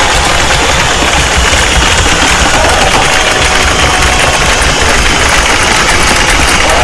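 Loud, steady engine-like noise with a low rumble.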